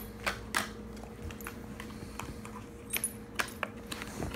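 A small dog moving about, its collar and feet giving scattered light clicks and jingles at irregular moments, over a faint steady low hum.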